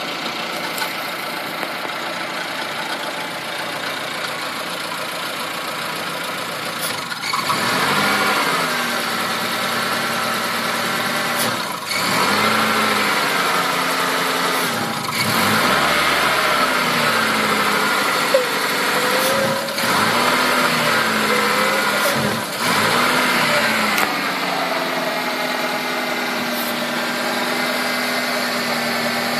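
Mazda 323 engine running with a misfire. It runs steadily at first, then its revs rise and fall several times before it settles back to a steady idle. The owner puts the misfire down to the engine sucking in unmetered air.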